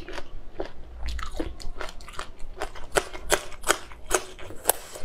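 A person chewing crunchy food close to the microphone, with a crisp crunch about two to three times a second.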